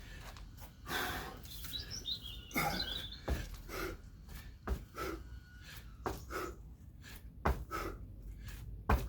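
A man breathing hard in short, forceful exhalations while doing kettlebell jump squats, with several thuds from the landings.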